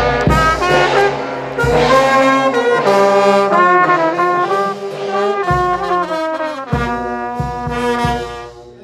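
Brass band playing a melody, with heavy drum beats coming in several times.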